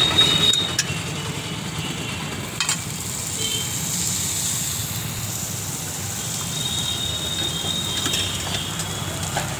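Chopped onions frying in hot oil in the middle of a large flat iron griddle (tawa): a steady sizzle, with a couple of light knocks.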